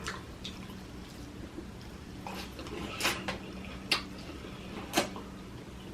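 Close-miked eating noises from a seafood meal: a handful of sharp smacks and clicks, the loudest about three, four and five seconds in, over a faint steady low hum.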